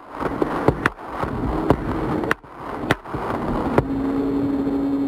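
Podium-microphone recording of rifle gunfire played at quarter speed, so it sounds slowed and lowered: a string of sharp cracks, each a supersonic bullet's snick followed by the rifle's echoing report, over crowd noise. A low steady tone sets in after the last crack, about four seconds in.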